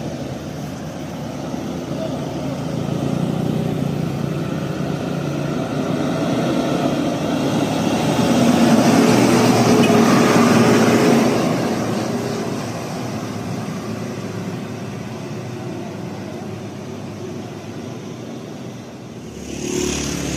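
A motor vehicle passing on the road: engine and tyre noise swells to its loudest about ten seconds in, then fades away.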